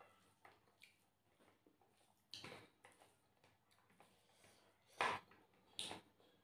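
Fingers working rice and curry on a plate: faint, sparse squishing, with a few short louder wet sounds, the loudest about five seconds in.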